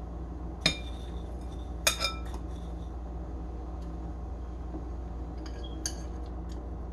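Kitchen dishes and utensils clinking: one sharp, ringing clink about a second in, two more close together around two seconds, and a few lighter clicks near the end, over a steady low hum.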